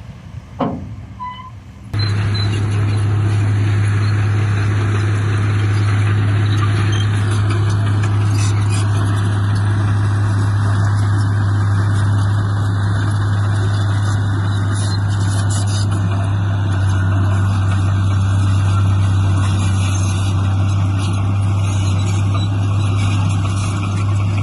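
Heavy diesel engine of earthmoving machinery running steadily with a low, even drone. It starts abruptly about two seconds in, after a quieter stretch.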